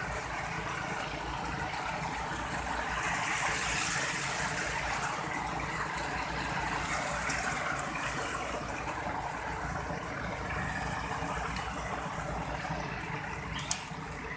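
Steady rush of water and sand slurry pouring down the sluice box of a tin-sand suction rig, with the pump engine running underneath. One sharp tap near the end.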